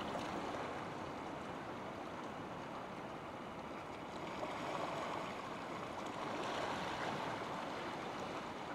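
Shallow seawater washing over a rocky shore: a steady rushing wash that swells a little about two-thirds of the way through.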